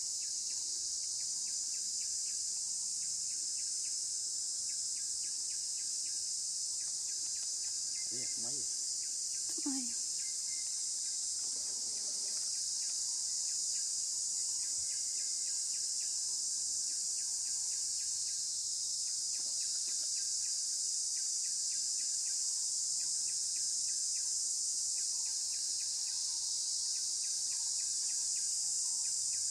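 Steady high-pitched drone of insects, with faint fast ticking beneath it. Two short faint calls about eight and ten seconds in.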